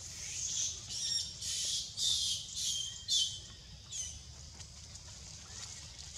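A quick run of about six short, high-pitched squeaky animal calls over the first four seconds, the last one sliding down in pitch.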